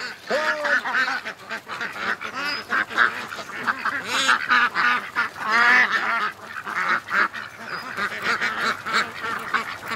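A flock of domestic ducks quacking together in a loud, steady, overlapping chorus as they stream out of their pen.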